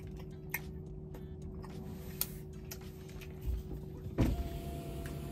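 Soft chewing with faint mouth clicks, then a little over four seconds in a car's electric window motor starts with a thump and runs with a steady whine.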